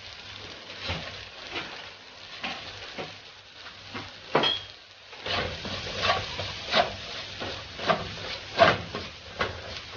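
Butter and garlic sizzling in a pan while a utensil stirs and knocks against it. The knocks are sparse at first and come in a quicker, irregular series from about halfway through.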